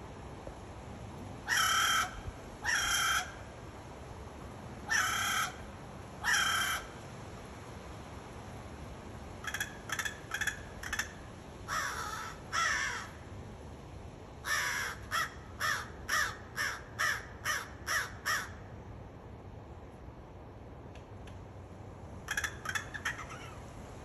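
American crow cawing in bouts: two pairs of drawn-out caws, then a string of shorter caws, then a quick run of about eight clipped caws, and two more near the end.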